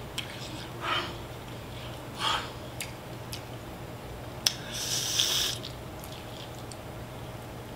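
Close-up eating sounds: short wet mouth noises and chewing while a fried chicken drumstick is pulled apart and bitten, with a sharp click about four and a half seconds in and a brief hiss just after.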